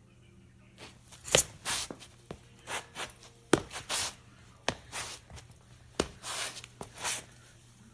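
Sneaker sole stomping and scuffing on a bare concrete floor: a quick, irregular run of thuds and short scrapes starting about a second in, from crushing scattering wolf spider babies underfoot.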